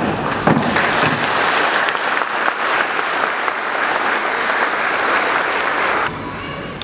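A sharp knock of a wooden gavel on the table about half a second in, then audience applause, which cuts off abruptly near the end.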